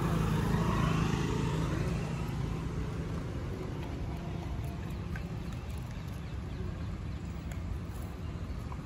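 A steady low outdoor rumble, louder for the first two seconds, with a few faint crunches as a dog eats dry kibble off the pavement.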